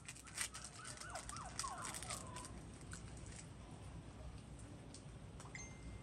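Light metallic clicks and taps from handling Zippo lighters, bunched in the first two and a half seconds. Faint short bird-like chirps sound over them for about the first two seconds, and there is a brief high beep near the end.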